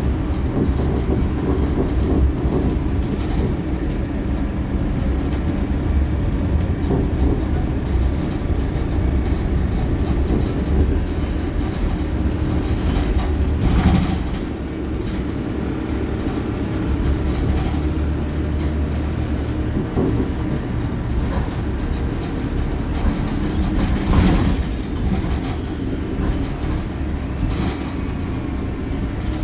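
Euro 6 Wright StreetLite single-deck bus on the move, heard from inside the cabin: a steady low engine and road rumble, with two brief sharp bursts of noise about 14 and 24 seconds in.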